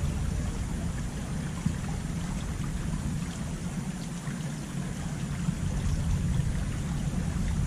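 Steady rush of shallow ditch water flowing over rocks, with a low rumble underneath.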